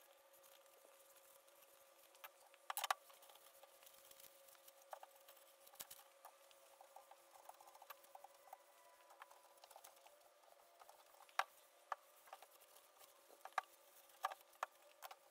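Faint rubbing and rustling of a cloth rag in gloved hands, wiping excess oil-varnish finish off wooden boards, with scattered light clicks and taps as the boards are handled.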